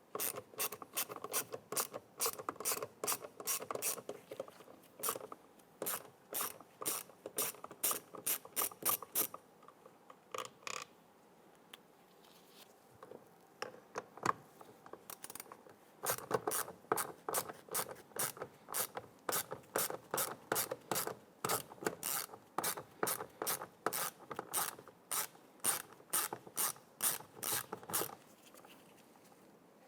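Hand ratchet with an extension and a 7 mm socket clicking in quick runs as it backs out door-handle screws, with a quieter pause in the middle.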